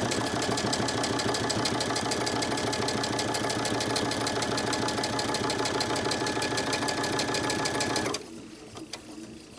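Baby Lock Crescendo sewing machine running a fast, steady straight stitch along a seam, stopping about eight seconds in.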